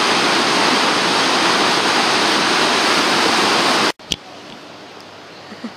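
Water rushing through a weir sluice in a walled channel: a loud, steady roar of churning white water. It cuts off suddenly about four seconds in.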